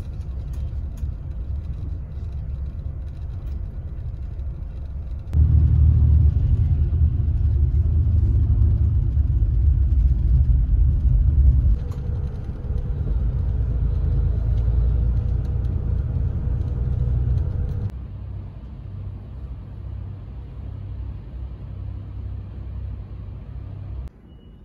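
Shuttle bus running on the road, a steady low rumble of engine and road noise. It gets abruptly louder about five seconds in and drops back about eighteen seconds in.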